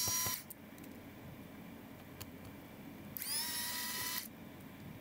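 Electric precision screwdriver whirring in two short runs as it backs out laptop hinge screws. The whine rises in pitch as the motor spins up. One run ends just after the start, and the second lasts about a second, beginning just after three seconds in.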